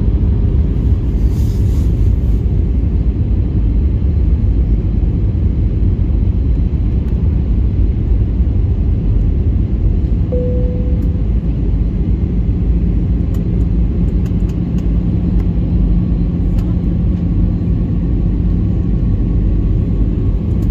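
Airliner cabin noise heard from a window seat on final approach: a loud, steady rumble of engines and airflow. A brief tone sounds about halfway through, and a faint steady hum runs through the second half.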